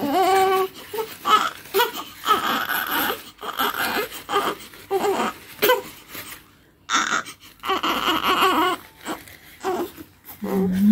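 Newborn baby crying in a string of high-pitched wails with short catches of breath between them, pausing briefly a little past the middle before crying again.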